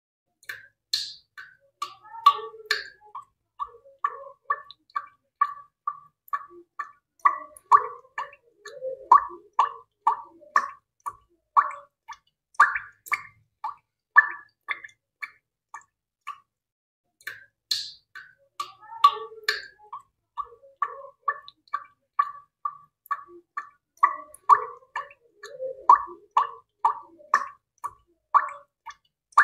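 A rhythmic series of short plopping, drip-like sounds, roughly two a second, that pauses briefly a little past halfway and then starts again in the same pattern.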